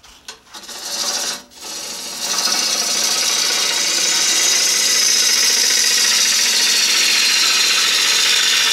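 Bowl gouge cutting the outside of a wooden bowl blank spinning on an electric lathe: a steady cutting noise that starts about half a second in, breaks off briefly after a second, then runs on loud and even.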